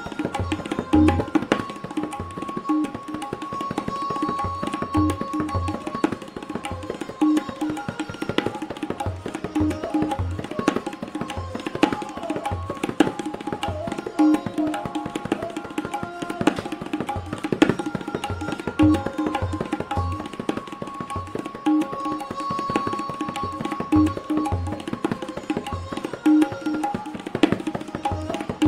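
Solo tabla in the Benares gharana style: rapid strokes on the dayan with regularly recurring deep bass strokes on the bayan, playing basic Banaras kaydas. Underneath runs a steady, repeating melodic line (lehra) that marks the rhythmic cycle.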